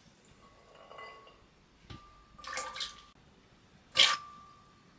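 Soaked macadamia nuts tipped into water in a blender jar: a few short splashes and clinks, the sharpest about four seconds in, each leaving a brief ringing tone.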